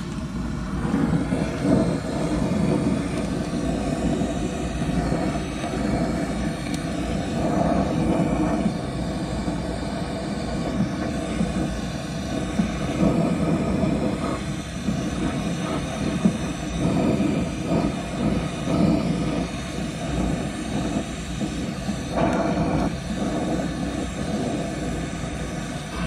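Gas torch flame roaring steadily as it heats the seized, rusted clevis pins of a dump body's tailgate latch linkage to free them. It comes on at the start and keeps going with small rises and falls.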